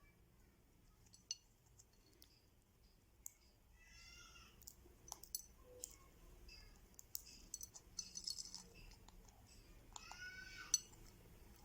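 Pet parrot eating, with faint scattered clicks and cracks of its beak working on food. Two short pitched chirps come in, about four seconds in and again near the end.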